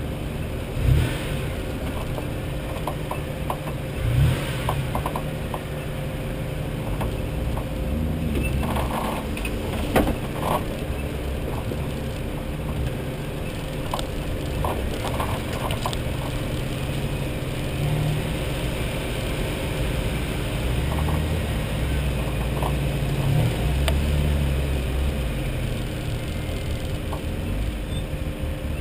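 Off-road 4WD's engine running at low revs as it crawls over a rough rocky track, with the body and load rattling and clicking over the bumps. Three harder knocks come about a second in, at about four seconds, and at about ten seconds.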